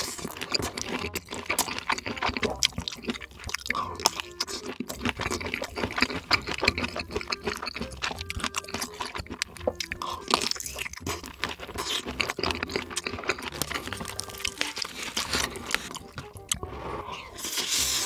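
Close-miked eating: bites into a smoked sausage coated in cheese sauce and chewing, a dense run of small wet clicks and crackles.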